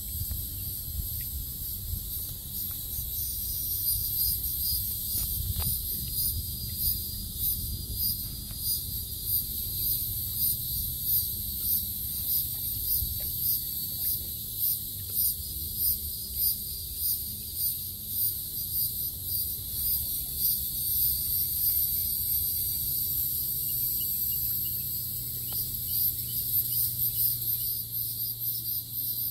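Insects chirping in a high-pitched chorus that pulses in a steady rhythm a little under twice a second, with a low rumble underneath.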